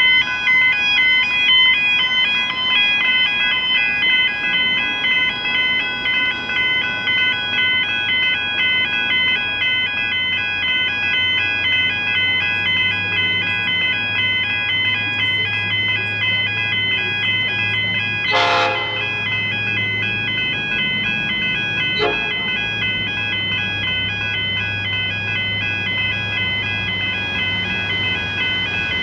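Level crossing warning bells ringing throughout in a steady, repeating alternating chime. The low rumble of an approaching diesel goods locomotive grows from about a quarter of the way in. The locomotive's horn gives a short blast about two-thirds of the way through and a brief toot a few seconds later.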